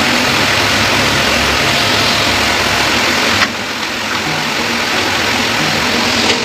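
A steady, loud rushing noise, like a fan or motor running, that drops suddenly about three and a half seconds in, with a low hum beneath it.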